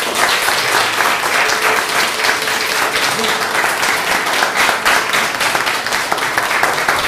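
An audience applauding steadily as a student performer is called up to the piano.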